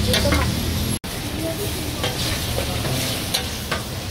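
Tofu pieces sizzling on a hot flat-top griddle while metal spatulas scrape and clink against the plate as they flip and gather them. The sound cuts out for an instant about a second in.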